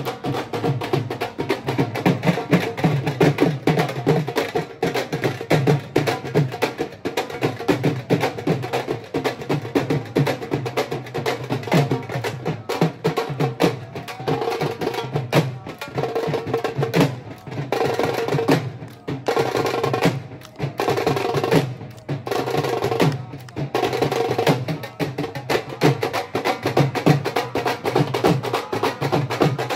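Fast, driving dholak drumming in a lively devotional procession beat, with a few short breaks in the second half.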